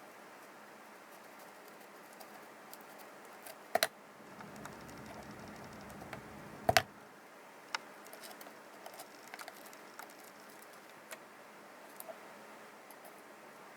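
Scattered small clicks and taps of handling small objects, with two louder knocks about four and seven seconds in and a low rumble between them.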